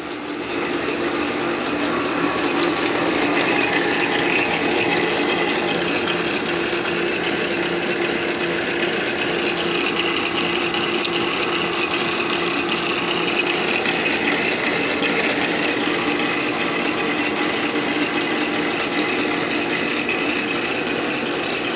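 1909 Hendey 8-speed engine lathe running under power: a steady mechanical hum and whine from its belt-driven motor, headstock and gearing.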